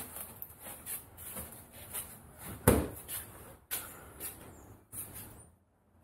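Scattered knocks, scuffs and footsteps from handling a foam-board kayak panel as it is pressed into place on its glued seam, with one loud thump a little before the middle.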